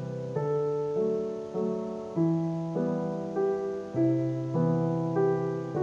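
Background music: a slow, even melody of held notes, stepping to a new note about every half second.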